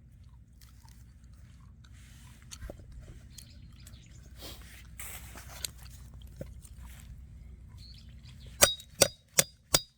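Soft handling noise, then near the end a quick series of four or five sharp knocks about half a second apart: a knife striking and splitting a thick kudzu root into pieces.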